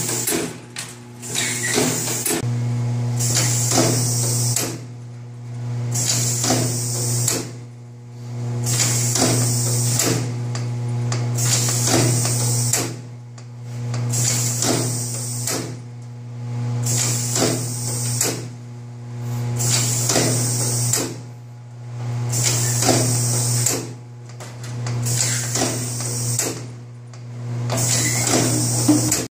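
Champion 16SD cookie depositor running, depositing dough onto trays in a repeating cycle about every three seconds. A steady low electric hum runs throughout, and each cycle brings a hissing, clattering stroke lasting about two seconds.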